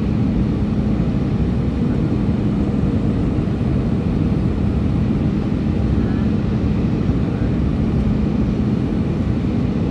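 Steady cabin noise of an Airbus A319 descending on approach to land, heard from a seat over the wing: engine drone and rushing airflow, with a steady low hum.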